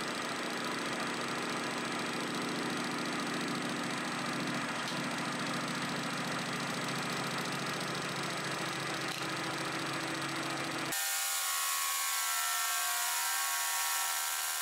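1980s Colchester metal lathe running while a carbide parting insert cuts into a square block spinning in the chuck, an interrupted cut. About 11 seconds in, the sound changes abruptly and loses its low end.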